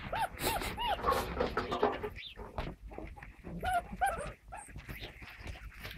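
Great Dane puppies yelping and whimpering in short, high, rising-and-falling cries. There is a quick run of cries at the start and another about halfway through.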